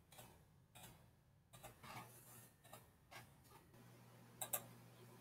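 Faint, scattered computer mouse clicks, about eight in all, with a sharper close pair about four and a half seconds in, over a faint steady low hum.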